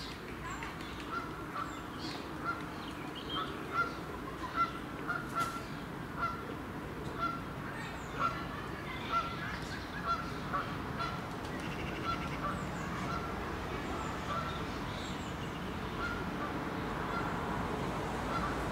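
A goose honking repeatedly on the pond, short calls roughly one a second, easing off near the end, over a steady low background noise.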